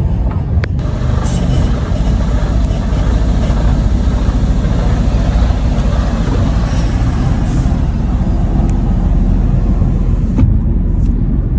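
Truck engine running with a steady low rumble as the truck pulls slowly through a gate, heard from inside the cab, with a couple of light clicks in the first second.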